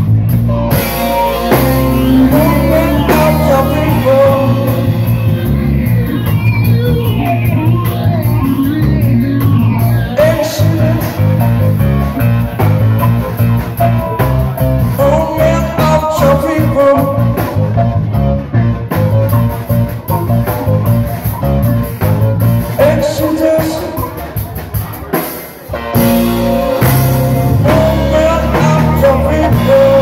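Live band playing: steel guitar, drum kit and electric keyboard. About 24 seconds in the band drops briefly quieter, then comes back in full.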